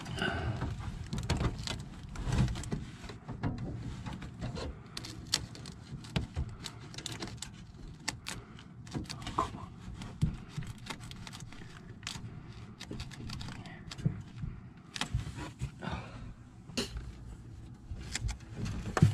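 Irregular small clicks, taps and rustles from hands working a copper gas pipe and its brass fitting in the tight space behind a motorhome oven, close to the microphone.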